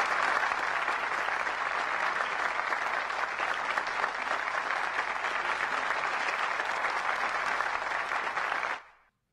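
Audience applauding steadily, then cut off abruptly near the end.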